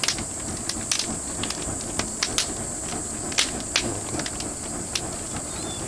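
Oak firewood fire crackling: irregular sharp pops and snaps over a steady hiss.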